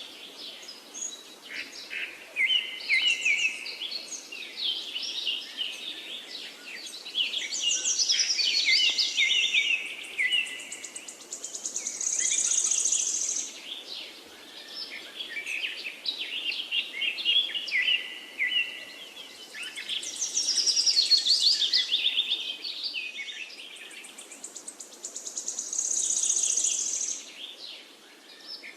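Several forest songbirds singing and chirping at once, with repeated high, fast trills lasting about a second each, over a faint steady rush of a river.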